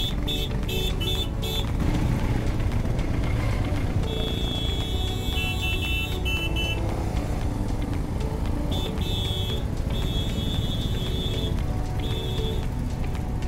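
Upbeat background music with a bright, chopped melody, over a steady low rumble from the motorcycle and road.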